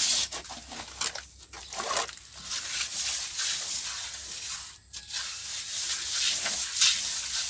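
Plastering trowel scraping and smoothing across wet cement render, a rough swishing rasp in repeated strokes with short breaks between them.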